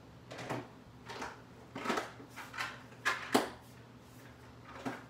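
A clear plastic storage container and its lid being handled on a table: a run of irregular light clicks and knocks, the loudest a little past three seconds in.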